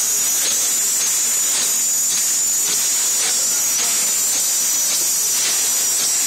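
Double-twist candy wrapping machine running: a steady high hiss with faint, regular clicks about twice a second.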